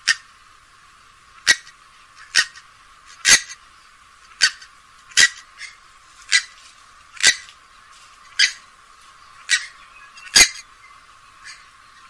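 Grey-headed swamphen giving a series of short, sharp calls, about one a second, a dozen in all.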